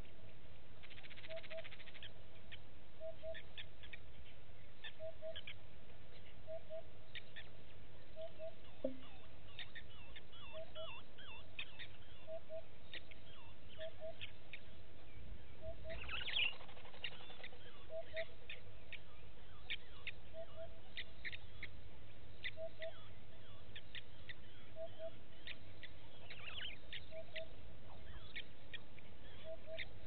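Bush birdsong: a low double note repeats steadily about every second and a half, with many short high chirps scattered throughout. About halfway through there is one brief louder call or rustle.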